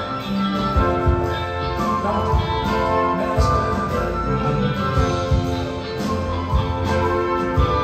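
Live rock band and symphony orchestra playing an instrumental passage, with guitar over a steady beat and no singing.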